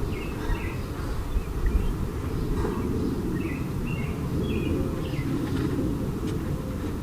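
Short bird chirps, a few near the start and a cluster a few seconds in, over a steady low rumble.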